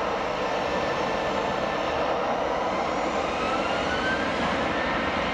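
Boeing 737-800's CFM56-7B turbofan engines at takeoff power on the takeoff roll: a steady, loud rush of jet noise with a faint whine slowly rising in pitch.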